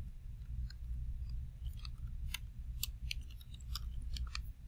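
Computer keyboard keys clicking in an irregular scatter of taps as text is typed and corrected, over a steady low hum.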